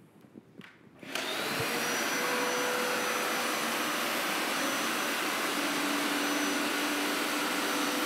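Hoover Power Scrub Elite carpet cleaner switched on about a second in. Its suction motor then runs steadily with a thin high whine as it extracts spilled liquid from a hard floor through the squeegee nozzle.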